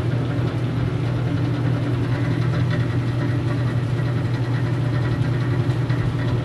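Antique General Electric belt-drive refrigerator running: its electric motor driving the rotary compressor by belt, a steady low hum.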